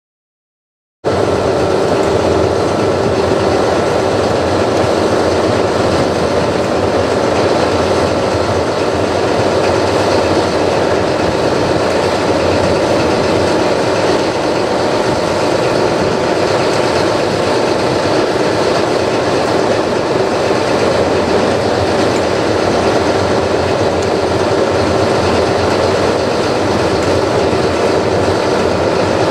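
Diesel engine of a standing Class 43 HST power car running, a steady loud drone with faint steady tones over it, cutting in about a second in.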